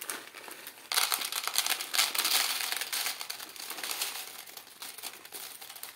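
Dry flattened pea flakes poured from a crinkling plastic bag into a plastic tray on a kitchen scale: a dense crackle of many small pieces falling that starts about a second in and thins out toward the end.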